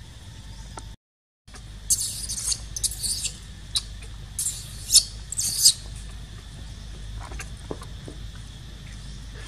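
Newborn macaque giving short, high-pitched squeals, about four in quick succession, with a brief gap in the sound just before them.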